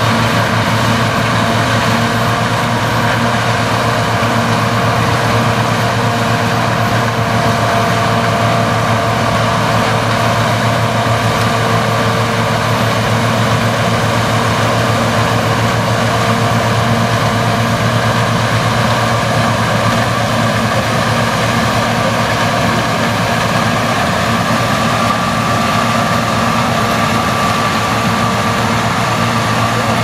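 TRIBINE combine running steadily while harvesting corn with a Drago GT corn head: a steady low engine hum with several constant whining tones from the machinery, a higher whine growing stronger near the end.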